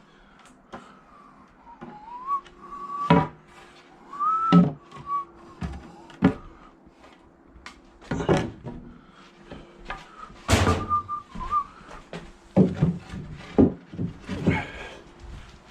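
A man whistling a few short, wavering phrases as he works, over repeated clunks and knocks of wooden boards being handled and set down. A faint steady hum runs underneath.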